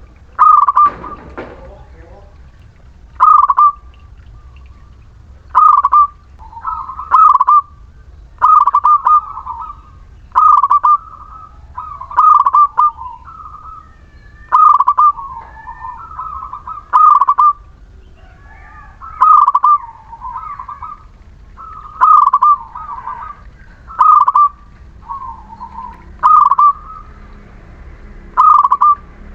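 Zebra dove (perkutut) singing its cooing song: loud, short trilled coo phrases repeated about every one and a half to two seconds.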